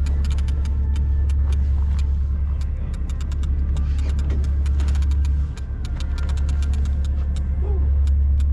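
Steady low drone of a fishing boat's engine, with many small clicks and rattles over it.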